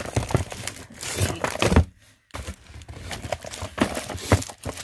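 Small jewelry gift boxes, cardboard and plastic-wrapped, being rummaged through in a big cardboard carton: a run of knocks, clacks and crinkly rustling as they are shifted and pulled out. The noise breaks off briefly about two seconds in, then resumes.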